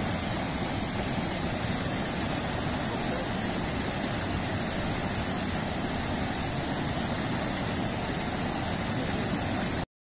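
Small waterfall and rushing rocky stream: a steady, even rush of water, broken by a brief dropout just before the end.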